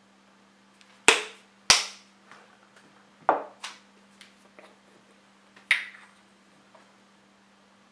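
Kitchen handling sounds as ground spices are measured into a glass bowl: a few sharp clicks and taps, the two loudest close together about a second in, then three more and some lighter ticks, over a steady low hum.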